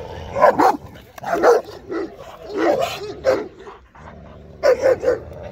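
A large dog barking repeatedly in short runs of one to three barks, with a lull of about a second before a last pair of barks near the end.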